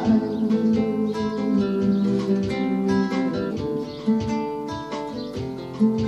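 Acoustic guitar playing an improvised instrumental tune, plucked and strummed, accompanied by a steady beat from a Roland electronic hand-percussion pad.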